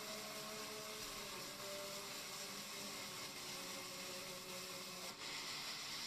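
Large vertical band saw running and ripping a thick wooden plank: a steady whirring hiss with faint humming tones underneath.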